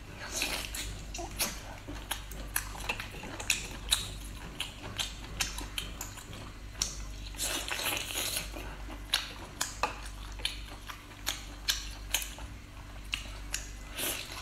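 Close-up eating sounds: sea snail meat being sucked, bitten and chewed from the shell, with many sharp, irregular wet smacks and clicks.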